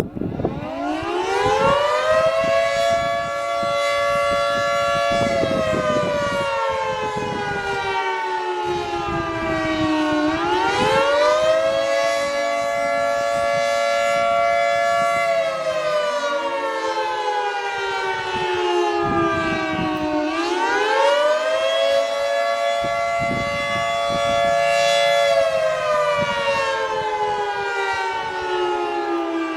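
Federal Signal 2T22 dual-tone outdoor warning siren winding up and then wailing. Its two-note chord rises quickly, holds, and slides slowly down again about every ten seconds, the wail of the Attack (civil defense) signal. A more distant Thunderbolt 1000T siren sounds faintly beneath it.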